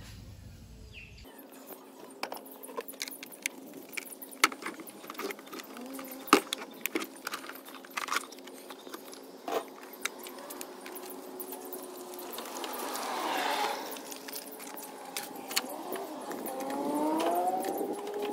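Metal hand tools clinking and knocking as they are packed into a fabric tool bag, in many scattered light knocks. A faint rising and falling tone comes in near the end.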